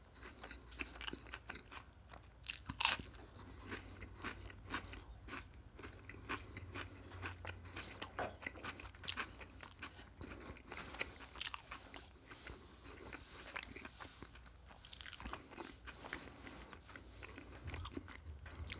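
A person chewing a mouthful of crunchy food with the mouth closed, close to the microphone: a steady run of crisp crunches and softer wet chewing sounds.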